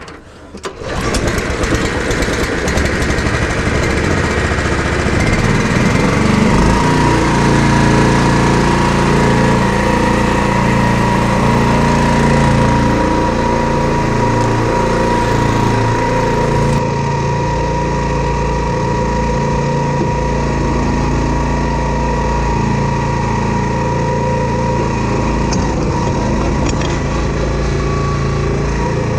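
An engine running steadily under load, its speed rising and falling as a machine works to flip a heavy piece of scrap over.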